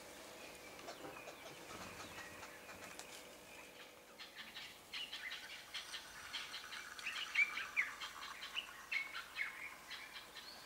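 Birds calling, a busy chatter of short, sharp chirps that starts about four seconds in and grows louder toward the end.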